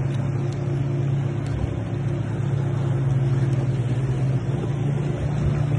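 A boat engine running with a steady drone, its pitch shifting slightly about four and a half seconds in, over a wash of water noise.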